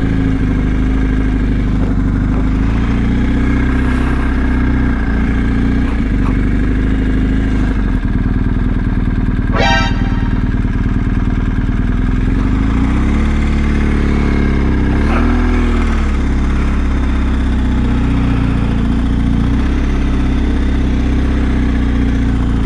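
BMW R1250 boxer-twin motorcycle engine running steadily on the move. Its pitch dips and rises again about two thirds of the way through.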